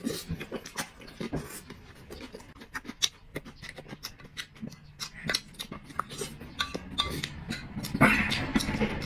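A person eating close to the microphone: a steady stream of short chewing and mouth clicks, with a louder burst about eight seconds in.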